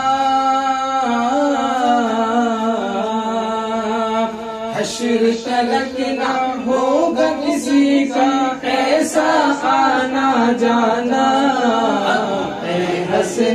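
Men's voices singing a naat a cappella in chorus, long held notes that bend and shift in pitch. A few sharp knocks cut through the singing about five, eight, nine and thirteen seconds in.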